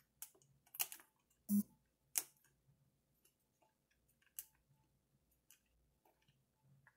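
Scattered clicks and knocks of a wrench and plastic parts as the wheel nut of a radio-controlled truck is worked loose; the loudest is a dull knock about a second and a half in.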